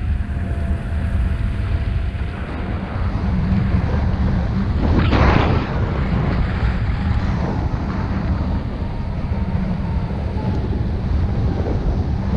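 Wind rushing over the camera microphone of a paraglider in flight, with a stronger gust about five seconds in. Faint thin steady tones come and go underneath.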